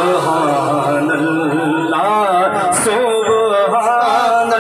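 A man singing a Punjabi naat (Sufi kalam) into a microphone, holding long notes that waver and ornament in pitch.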